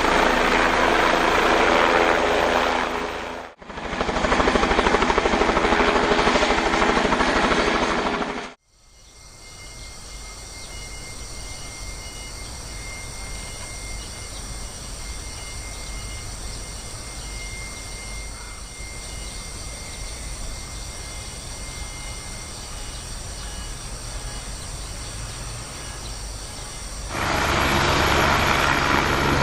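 Helicopter rotor and engine running steadily, with a fast low rotor beat. The sound cuts out abruptly twice in the first nine seconds, then stays much quieter with a thin steady whine until it comes back loud near the end.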